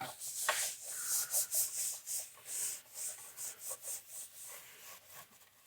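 Rapid back-and-forth scrubbing strokes on a PlayStation 5 part as it is cleaned of dust, about three strokes a second, growing fainter toward the end.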